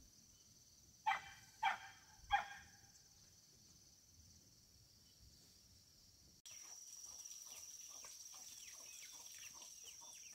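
Three short dog barks in quick succession. Then, after a sudden change about two-thirds through, a steady high insect drone with many quick chirps over it.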